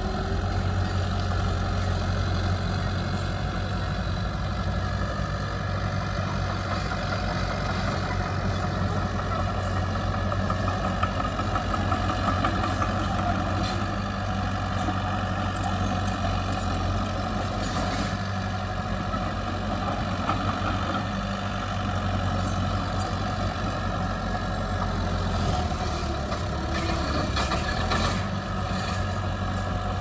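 Heavy diesel earthmoving machinery running steadily with a deep engine hum, and light clanks and clatter now and then, mostly in the middle and near the end.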